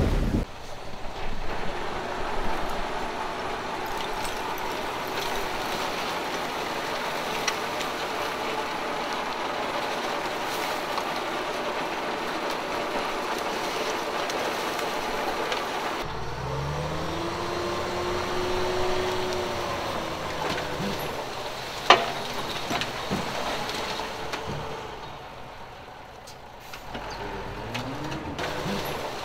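Heavy diesel earthmoving machinery running steadily. Just past halfway the sound changes abruptly and an engine revs up and back down over a few seconds, followed by a single sharp knock.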